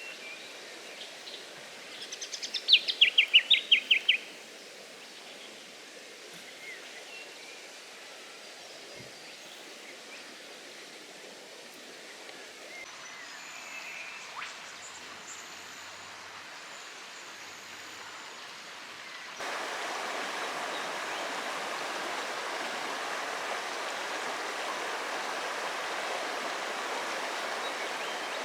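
Riverside ambience: a bird sings a quick, descending trill of rapid notes about two to four seconds in, over a steady hiss of flowing river water. The water gets louder about two-thirds of the way through.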